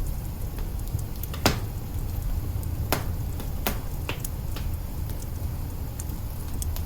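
Wood fire crackling in an open hearth: irregular sharp pops and snaps, the loudest about a second and a half in and again around three and three and a half seconds, over a steady low rumble.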